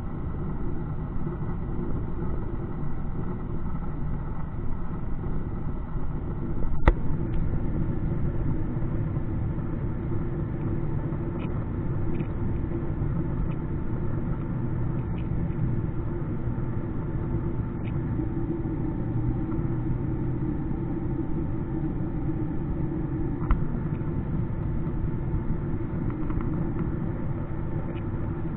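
Steady drone of jet airliner cabin noise during descent, engine and airflow heard at a window seat. A sharp click sounds about seven seconds in, with a smaller one later and a few faint ticks.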